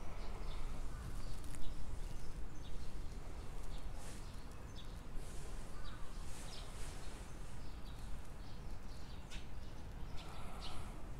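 Street ambience with scattered faint bird chirps and light footsteps over a low steady rumble.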